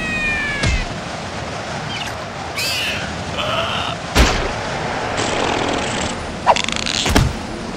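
Cartoon sound effects of a strong, steady wind gusting, with three sharp thuds and several short squeaky cartoon-creature yelps over it.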